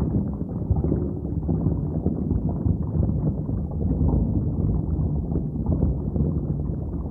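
Muffled underwater water noise: a steady low rumble and sloshing with no high end, as picked up by a camera held under the sea surface.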